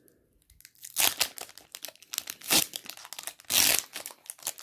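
Foil wrapper of a Pokémon TCG booster pack being torn open by hand: irregular crinkles and rips, the loudest about three and a half seconds in.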